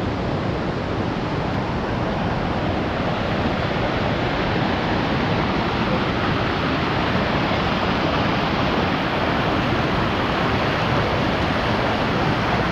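Steady rush of falling and flowing water from waterfall cascades, an even noise that does not let up.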